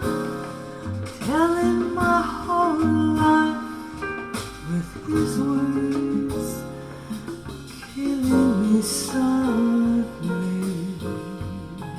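Recorded acoustic guitar music played back through Technics EAS-20F20 loudspeakers with Hivi RT1L tweeters, driven by a DIY hybrid 12AU7 tube amplifier and picked up by a recorder from the speakers. A wordless voice glides over the guitar in places.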